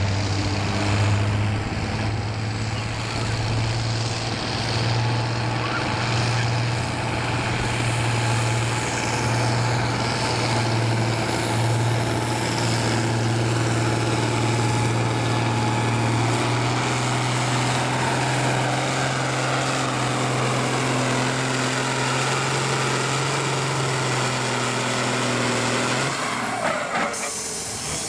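Farmall IH 806 tractor's six-cylinder diesel engine running flat out under load while dragging a weight-transfer pulling sled, a loud steady drone that climbs slightly in pitch early on. About two seconds before the end the engine sound drops away abruptly.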